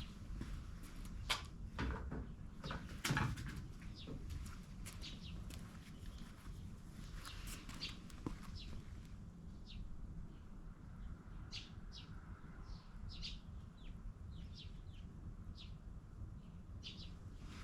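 Small birds chirping in short, high, repeated chirps, thickest in the second half, over a low outdoor rumble, with a few soft knocks in the first few seconds.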